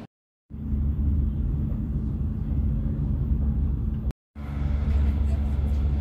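Steady low rumble of a regional passenger train running, heard from inside the passenger compartment. The sound drops out abruptly at the very start and again for a moment about four seconds in.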